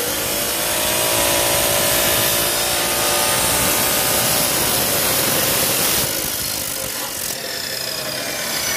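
Abrasive cut-off saw running, its disc grinding through steel angle iron. The cutting noise eases about six seconds in.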